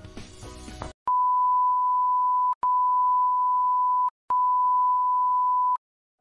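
Background music that cuts off about a second in, followed by three long electronic beeps of one steady pitch, each about a second and a half, separated by brief gaps.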